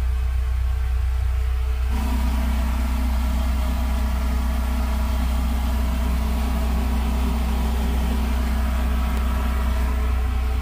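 Steady low droning hum, like a motor running. About two seconds in, a higher hum and hiss join it.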